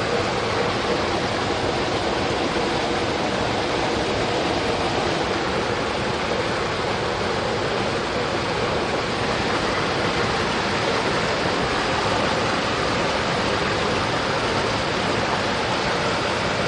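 Mountain stream flowing steadily through forest, a constant rushing of water.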